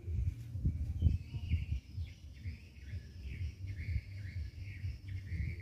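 Small birds chirping over and over in short calls, over an uneven low rumble of wind on the microphone with a few louder gusts, the strongest about a second in.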